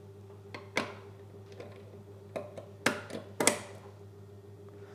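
About half a dozen short, sharp clicks and knocks as a sampling tube and its metal fitting are handled and connected to a particle-counter diluter's port, over a faint steady hum.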